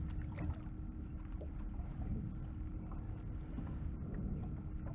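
Wind and water moving around a small open fishing boat, a steady low rumble with a faint steady hum under it.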